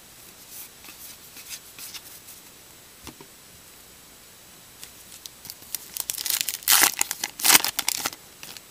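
Light rustling and crinkling of a baseball card pack's wrapper, then the wrapper is torn open with two loud rips near the end.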